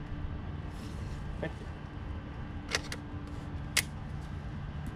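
Elite Force Legends lever-action CO2 airsoft rifle clicking as it is worked: a faint click, then two sharp metallic clicks about a second apart, the second the loudest. No gas-powered shot is heard, since the rifle has not been fully gassed.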